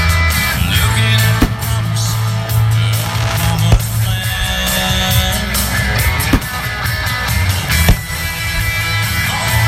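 Rock music with guitar and drums, the drum hits sharp and regular over a steady bass line.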